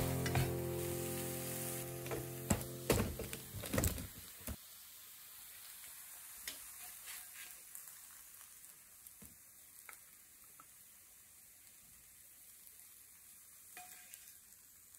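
Greens and egg sizzling in a non-stick frying pan, with a spatula scraping and tapping the pan several times in the first few seconds. After about four and a half seconds it goes quiet, with only a few faint clicks.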